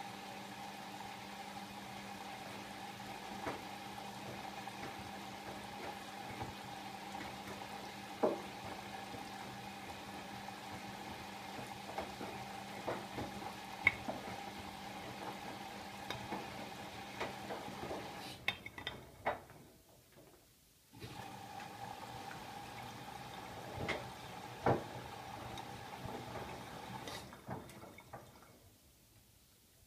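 Siemens iQ700 (WM16S793GB) washing machine filling with water: a steady hum with water running into the machine and scattered small clicks and knocks. The inflow stops about two-thirds of the way in, starts again a couple of seconds later, and stops again near the end.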